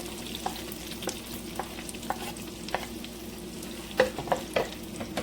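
Chopped onion sizzling in butter in a frying pan, with a utensil clicking against the pan as it is stirred; a few louder knocks come about four seconds in.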